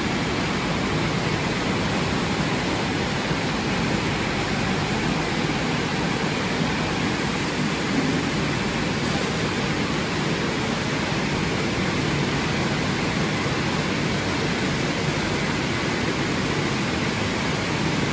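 Drying blower of an automatic rollover car wash gantry blasting air over a car's body to push the rinse water off, a steady loud rushing hiss with no let-up.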